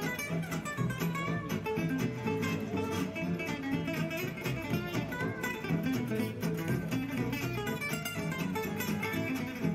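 Background music: acoustic guitar, plucked and strummed in a flamenco style.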